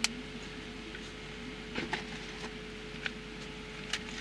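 Steady hum of a car's interior with a faint constant tone. A sharp click comes right at the start, and a few soft clicks and rustles of someone moving in the seat follow.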